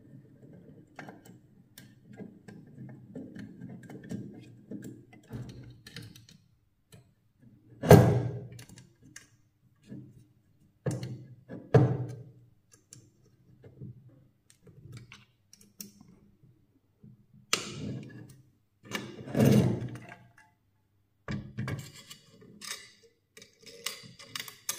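Irregular thunks and knocks of objects being handled and set down, with light clicks in between. The loudest knock comes about a third of the way in.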